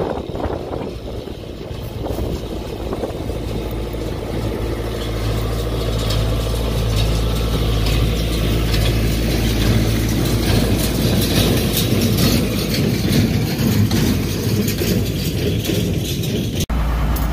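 Farm tractor engine running steadily with mechanical clatter from the working machinery, growing louder over the first several seconds. It cuts off abruptly near the end.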